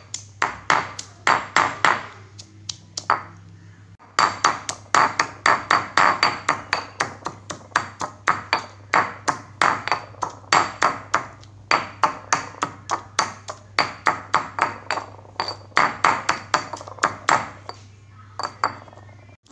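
Stone pestle pounding sliced onion, garlic and chilli into a spice paste in a granite mortar: rapid strikes about four a second, each with a short ringing ping of stone on stone, pausing briefly about three seconds in and again near the end.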